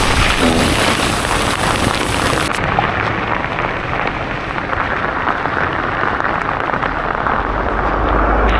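Heavy thunderstorm rain pouring down in a dense, steady hiss that turns duller about two and a half seconds in. A low rumble swells near the end.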